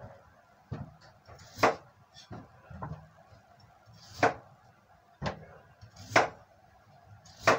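Kitchen knife slicing a potato on a cutting board, giving a sharp knock against the board about once a second at an uneven pace.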